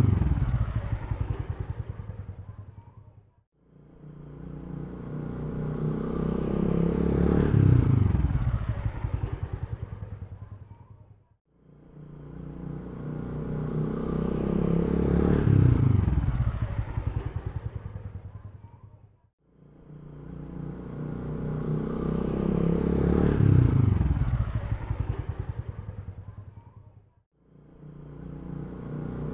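A motorcycle engine swells in loudness to a peak, then drops in pitch and fades away. The same sound repeats about every eight seconds, each time cut off by a brief dropout, like a looped pass-by.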